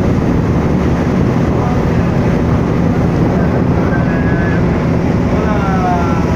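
Boat engine running steadily under a constant loud rush of wind and water noise.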